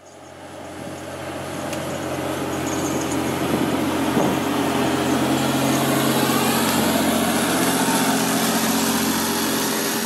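John Deere 948L skidder's diesel engine running steadily under load as it pulls a heavy disk harrow. The sound fades in at the start and grows louder over the first few seconds as the machine comes close.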